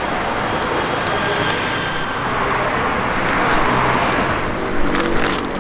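Road traffic going by, one vehicle swelling louder around the middle and fading again, with a few sharp clicks near the end.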